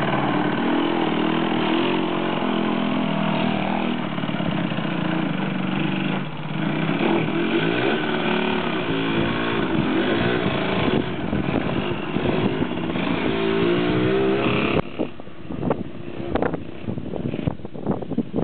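Yamaha DT50MX moped's two-stroke 50 cc single-cylinder engine being ridden, its revs rising and falling. About fifteen seconds in it drops away sharply as the moped moves off, leaving scattered short knocks.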